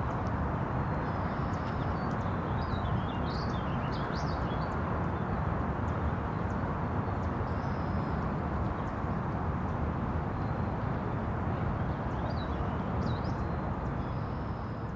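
Birds chirping in short bouts, a few seconds in and again near the end, over a steady rushing outdoor background noise.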